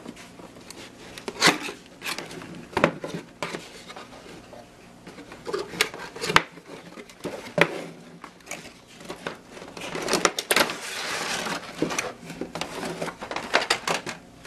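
Handling and unpacking a cardboard drone box: a string of taps, knocks and scrapes as the box is opened and its inner box slid out, with a longer rustle in the later part and a clear plastic tray lid lifted off near the end.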